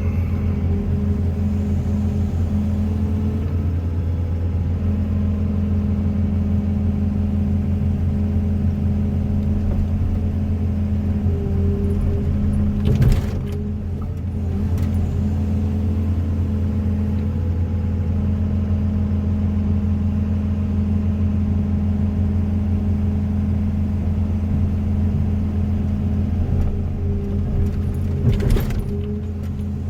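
Hyundai HW175ACR wheeled excavator's diesel engine running steadily with a deep, even hum. There is a short clatter about halfway through and another near the end, each followed by a brief dip in the engine sound.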